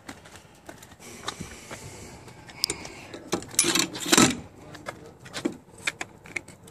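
Stainless steel folding boarding ladder on a boat's stern being swung up and folded by hand: scattered metal clicks and clanks, with a louder rattle and scrape about three and a half to four seconds in.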